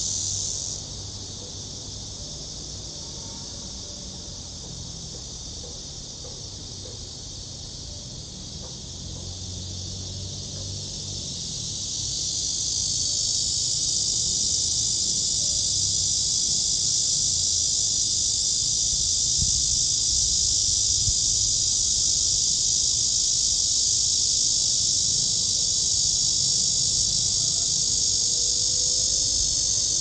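Chorus of cicadas buzzing in a continuous high-pitched drone. It eases off about a second in, then swells back louder over the next several seconds and holds steady.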